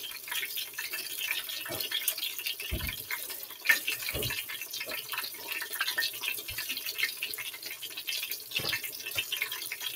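Fish frying in hot oil in a covered pan on high heat: a steady crackling sizzle of fine pops, with a few dull knocks of kitchen handling.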